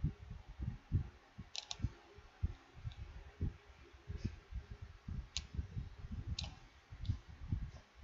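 Computer keys and a mouse being clicked in irregular runs of soft knocks, with a few sharper clicks.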